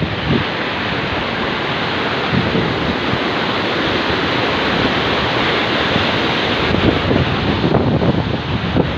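Fast-flowing river rushing steadily, with wind buffeting the microphone now and then in the last couple of seconds.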